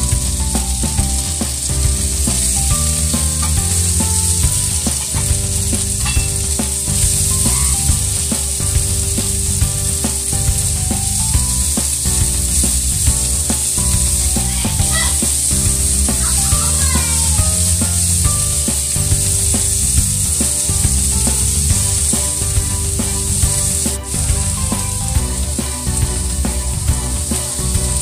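Diced onions sizzling steadily in hot oil in a non-stick frying pan, stirred and pushed around with a plastic spatula.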